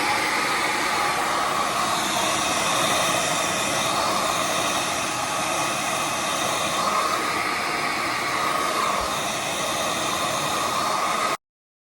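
Handheld hair dryer blowing on a steady high setting, a loud even rush of air and motor that starts abruptly and cuts off suddenly near the end.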